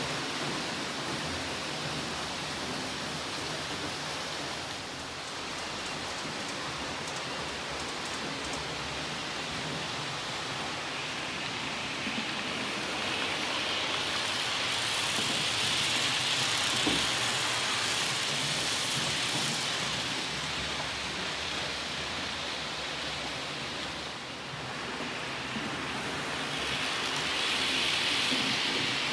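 Model trains running on the layout's track: a steady rushing hiss of small wheels on the rails and the locomotive motors. It grows louder as coaches pass close by midway and again as a line of hopper wagons rolls past near the end.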